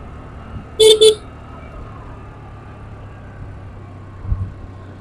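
A vehicle horn beeps twice in quick succession about a second in, two short, loud blasts, over the steady running noise of a moving two-wheeler.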